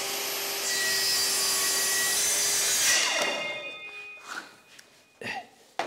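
Plunge-cut track saw running along its guide rail, its blade cutting through a pine skirting board to make the 45-degree corner cut. After about three seconds the cut ends and the motor winds down, falling in pitch, followed by two short knocks near the end.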